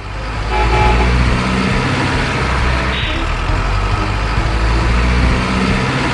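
Truck engine running with a steady low rumble as a loaded dump truck moves, with a short hiss about halfway through.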